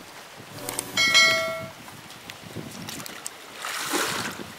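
Splashing of feet wading into shallow, weedy water, starting about three and a half seconds in. Before that, about a second in, a brief loud high-pitched call or tone.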